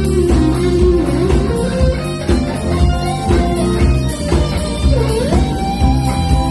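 A jazz-funk band playing live, with a guitar-like lead melody that slides and bends in pitch, dipping and rising again about five seconds in, over bass and a steady drum beat.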